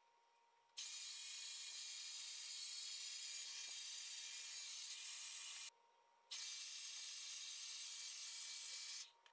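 Handheld hair dryer blowing with a steady hiss, starting abruptly under a second in, cutting out briefly a little past halfway, then resuming and stopping shortly before the end.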